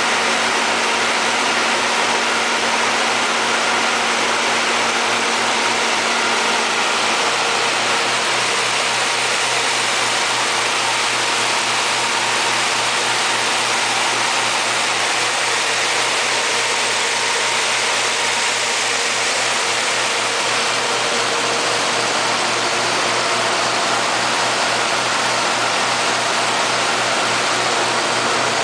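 Ingersoll Rand N80 natural gas generator set's GM Vortec 8.1L V8 engine running at a steady, constant speed, an even drone with a steady hum in it.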